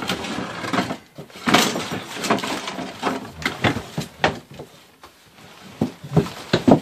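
Irregular wooden knocks, bumps and scrapes of a cedar patio table top being gripped and shifted by hand, with the sharpest knocks about a second and a half in and again just before the end.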